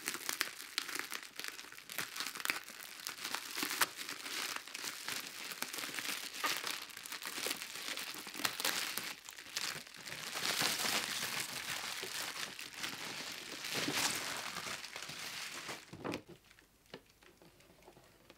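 Plastic bubble wrap crinkling and rustling as it is cut with scissors and pulled off a cardboard figurine box, with many small crackles and snaps. It goes quiet about two seconds before the end.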